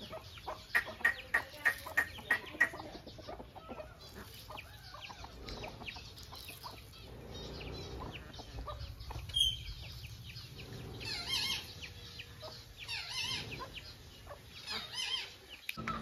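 Chickens clucking: a quick run of short clucks in the first few seconds, then further short calls later on.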